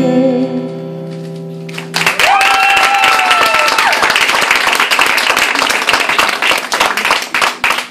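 The last chord of an acoustic guitar ringing out and fading. About two seconds in, audience applause breaks out, with one listener's cheer over it, and runs on.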